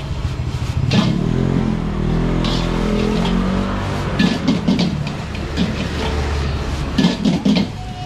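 Street traffic: a motor vehicle's engine passes with its pitch shifting down and up, over a steady low engine hum, with a few sharp knocks scattered through.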